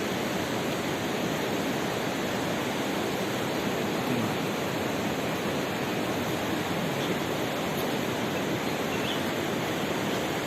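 Steady rushing noise of flowing river water, even and unbroken, with a few faint short high chirps over it.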